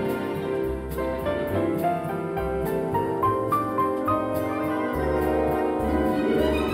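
Instrumental background music led by piano, with a short run of notes stepping upward about three seconds in.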